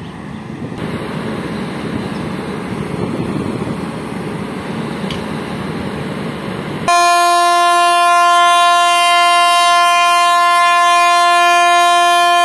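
Passenger train running, with a steady rumble and wind noise. About seven seconds in, the locomotive horn sounds one long, steady blast, much louder than the running noise.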